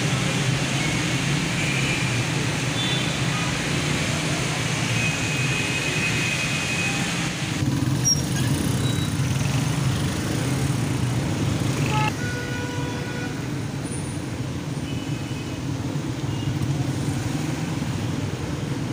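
Road traffic on a rain-wet road: a steady wash of cars and motorcycles passing, with a few short faint tones over it. It gets a little quieter about twelve seconds in.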